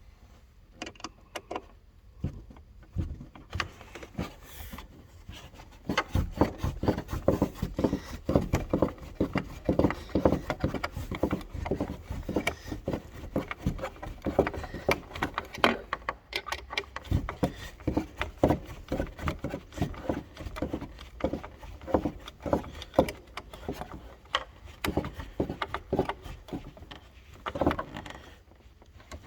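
6 mm bolt being fitted and screwed into a freshly re-threaded door-handle hole: a few scattered knocks, then from about six seconds in a dense, irregular run of small clicks and knocks of metal and plastic being handled and turned.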